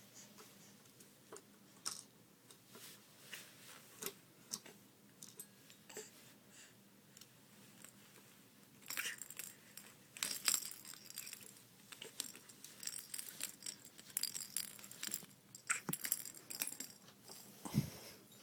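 Irregular jingling and clattering clicks, like small metal objects or keys being shaken and knocked about. Sparse at first, then busier from about halfway through.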